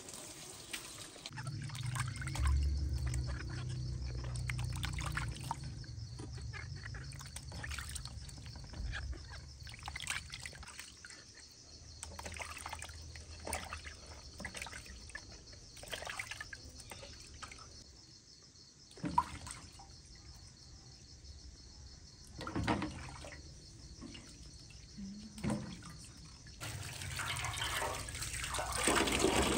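Vegetables being washed by hand in a metal basin of water: irregular splashing and sloshing with an occasional knock, and a low hum in the first few seconds. Near the end a tap runs steadily, pouring onto the vegetables in a wicker basket.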